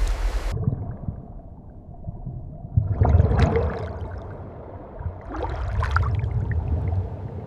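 Water sloshing and gurgling over a steady low rumble, with two louder splashing surges about three and six seconds in.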